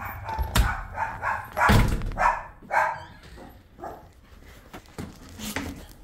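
A dog barking several times in quick succession through the first three seconds, mixed with a couple of heavy thuds, then a few quieter barks and yips.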